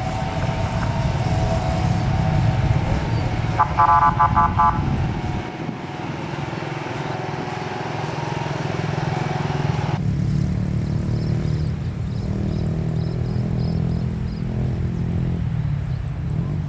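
Road traffic with motorcycles and cars running, and a vehicle horn giving a quick series of short toots about four seconds in. The sound changes abruptly about ten seconds in.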